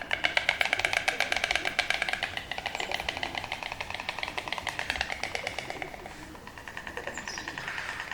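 A bird calling a fast, even series of short repeated notes, about seven a second, dipping briefly near the end before cutting off abruptly.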